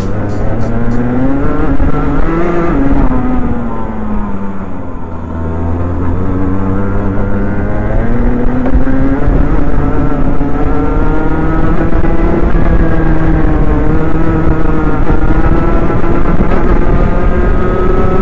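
Onboard sound of a Rotax Mini Max kart's 125cc single-cylinder two-stroke engine at speed on track: the revs rise briefly, fall away about four seconds in, then build again and hold high with small dips. The owner says a misfire was still present during this run despite a new spark plug.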